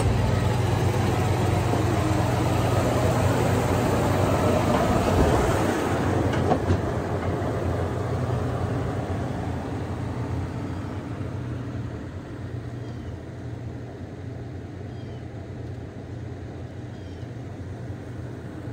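Toyota Tundra's 4.7-litre V8 engine running directly overhead with a low, steady rumble, which drops after about five seconds and fades gradually as the pickup backs away.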